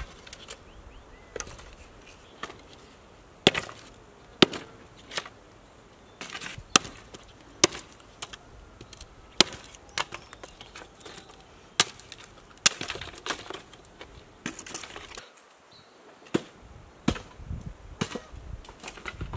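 Hatchet chopping dry branches into kindling against a log: sharp wooden chops at irregular intervals, roughly one a second.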